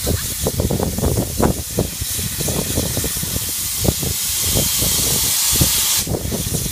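Steam hissing from the cylinder drain cocks of an Ivatt Class 4MT 2-6-0 steam locomotive, building up and then cutting off sharply about six seconds in, with irregular low thumps underneath.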